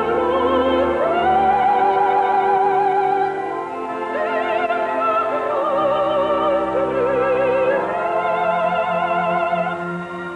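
A woman singing in operatic style, holding long notes with a wide vibrato over instrumental accompaniment.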